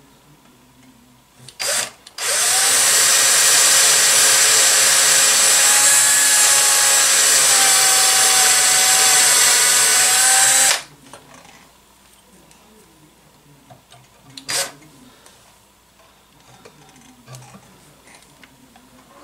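Cordless drill: a short blip of the trigger, then one steady run of about eight seconds with its whine shifting slightly in pitch, and another short blip later.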